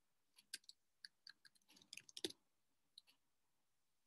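Faint typing on a computer keyboard: irregular single keystroke clicks, with a quick flurry about two seconds in.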